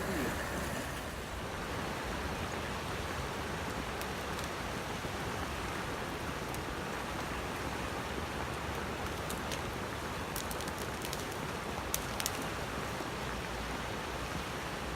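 Floodwater rushing steadily down a desert wadi channel in a strong flash flood, with a few faint sharp ticks near the end.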